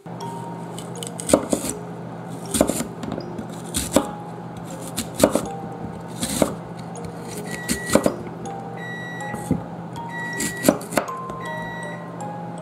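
Kitchen knife slicing through lotus root onto a wooden cutting board: a sharp knock at each stroke, about nine of them, one every second or so. Soft background music with sparse held notes plays underneath.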